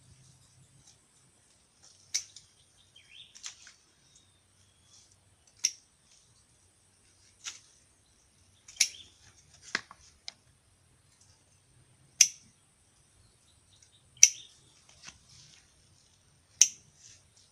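Hand pruning shears snipping through plant stems and twigs, one sharp snip every second or two at an uneven pace, about nine cuts in all.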